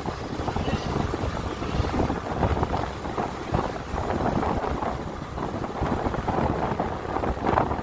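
Wind buffeting the microphone over the low rumble of a moving vehicle, rising and falling unevenly.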